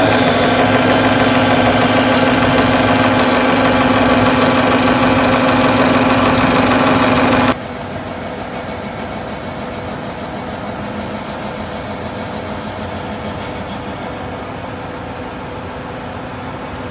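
McElroy Talon 2000 butt fusion rig running: a loud, steady machine drone with a strong low hum. About seven and a half seconds in it cuts off abruptly to a quieter, steady machine hum.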